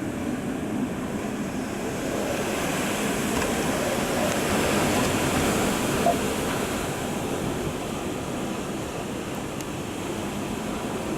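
Typhoon storm wind blowing hard. A gust swells from about two seconds in and eases off after about seven seconds, with a brief knock about six seconds in.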